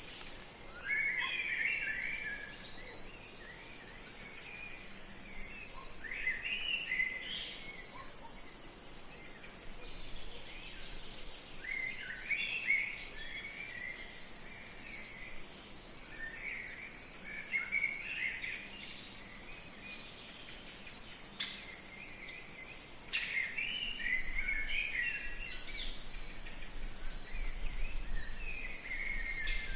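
Rainforest ambience: a high, steady insect call pulsing evenly about one and a half times a second, with birds chirping in short bursts every couple of seconds.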